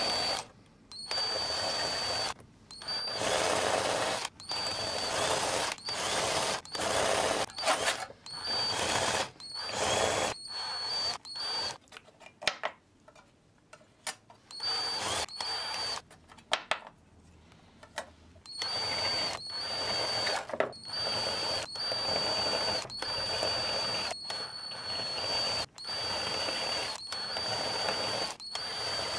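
Power drill with a large twist bit run in short bursts of a second or two, deburring the edges of drilled holes in a metal panel, with a steady high motor whine during each run. A longer pause comes about midway.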